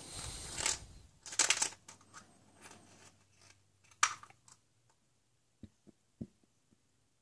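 Plastic surprise eggs rattling and knocking together as a hand rummages through a bin of them. About four seconds in, a plastic egg snaps open with a sharp click, followed by a few faint clicks.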